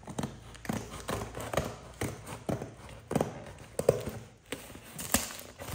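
Cardboard parcel being opened: scissors and fingers working at the packing tape, making an irregular run of sharp snips, taps and scrapes on the box.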